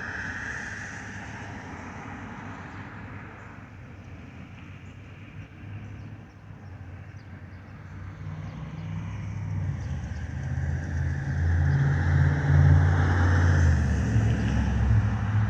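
Boeing 757-251 jet engines: a steady whine, then a low rumble that builds to a loud peak in the second half as the airliner draws near.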